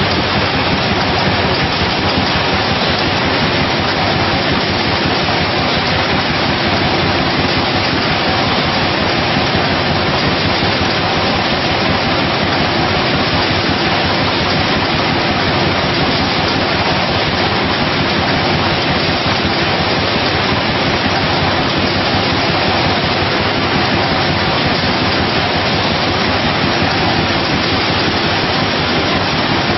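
24,000 bottles-per-hour PET bottling combiblock running at production speed: a loud, steady, even noise with no breaks or separate knocks.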